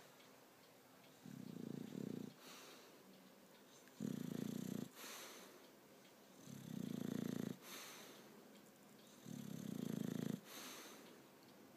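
Sleeping bulldog snoring in a slow, even rhythm: four snores, about one every two and a half to three seconds, each followed by a softer, airy breath.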